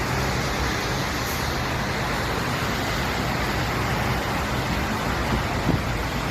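A vehicle engine running steadily under a continuous rush of noise, with no distinct impacts or changes.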